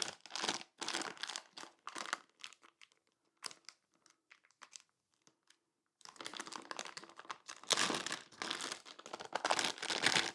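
Hands handling small parts and wiring, crinkling and rustling with light clicks: scattered rustles at first, a near-quiet spell in the middle, then denser crinkling from about six seconds in.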